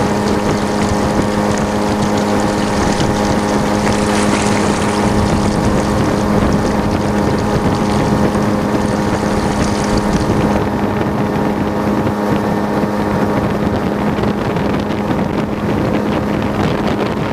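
Boat motor running at a steady, unchanging pitch, with wind rushing over the microphone. The high hiss thins out about ten seconds in.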